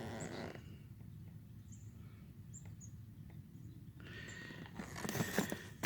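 Quiet outdoor ambience with a low steady rumble and a few faint, short high chirps from birds. About four seconds in, rustling and clicking handling noise starts and grows louder.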